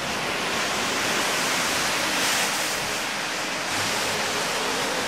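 Small Lake Superior waves breaking and washing up a sand beach: a steady rush of surf that swells briefly about halfway through.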